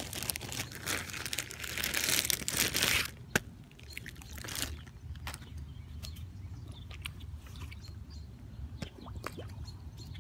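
Clear plastic zip-lock bag crinkling as it is handled, for about three seconds, then one sharp click, followed by quieter scattered small ticks.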